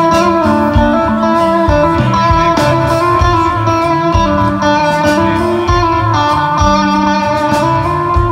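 Blues-rock band playing: electric guitar over a stepping bass line and drums.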